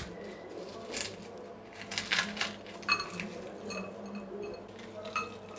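Crisp fried papdi wafers crackling and crunching as they are crushed by hand and sprinkled onto a bowl of chaat, in a few short, faint crunches spread over several seconds, with a few light clinks around the middle.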